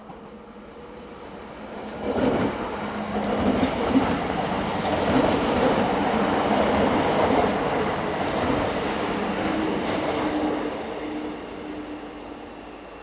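Czech Railways Škoda RegioPanter electric multiple unit passing close by, its wheels clattering over rail joints and points with a low hum underneath. It swells about two seconds in and fades near the end.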